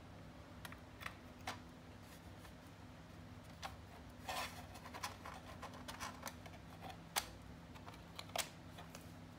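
Scattered plastic clicks, light knocks and scrapes as the HP EliteBook 8470w laptop's case and bottom cover are handled and closed back up. The sharpest clicks come about seven and eight and a half seconds in, over a faint steady low hum.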